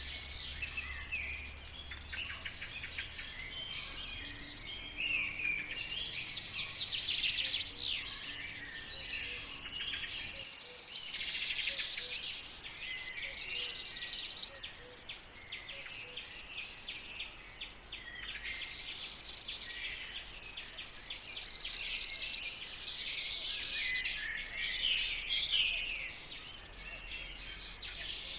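Several wild birds singing and calling at once, overlapping warbled phrases, trills and quick chirps in a morning chorus, with a faint low rumble under the first part.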